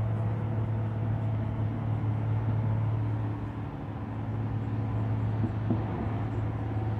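Steady low room hum, with faint squeaks and rubs of a marker writing on a whiteboard.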